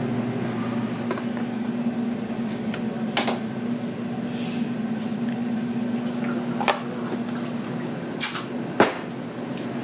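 Water sloshing and splashing in a plastic tub as a whole raw octopus is lifted and dunked, over a steady hum of kitchen machinery. Near the end the tub's plastic lid is pressed on with two sharp clicks.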